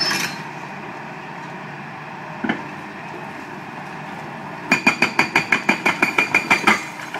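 Excavator-mounted hydraulic breaker hammering on concrete rubble in a fast, even burst of about seven blows a second, lasting about two seconds in the second half, over the steady running of the excavator. A single knock comes a couple of seconds earlier.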